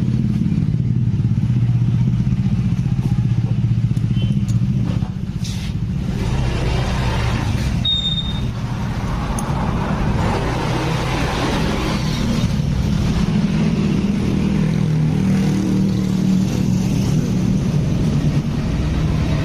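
A motorcycle engine idling steadily, with a few light clicks between about four and six seconds in.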